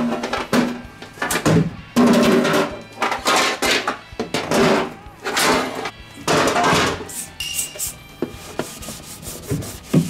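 A cloth wiping and rubbing the plastic inside of a small refrigerator in repeated strokes, about one a second, with the cleaning spray.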